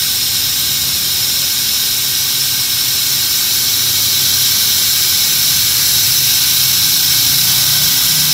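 Suction extractor hissing steadily as it draws the dirty carbon-cleaning fluid out of the engine's cylinders through a thin tube into a clear canister, with a faint low hum underneath.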